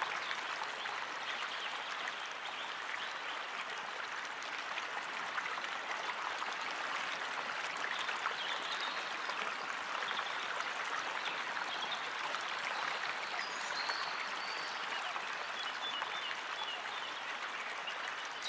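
Steady rushing of flowing water, like a stream or river running, with no change in level.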